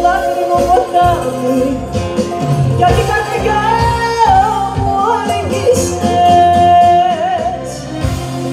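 Live Greek band music: bouzouki with keyboard and drums, and a sung melody with gliding phrases and one long held note about two-thirds of the way in.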